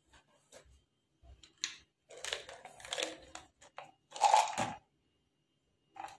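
Crunchy, rustling handling noise in several short bursts, loudest a little past four seconds in, with a brief one near the end.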